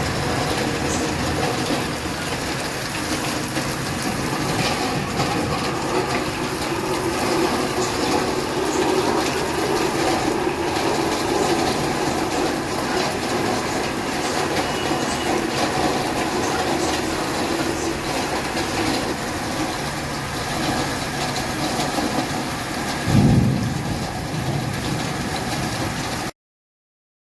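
Heavy rain pouring steadily. A brief low thump about 23 seconds in is the loudest moment, and the sound cuts off just before the end.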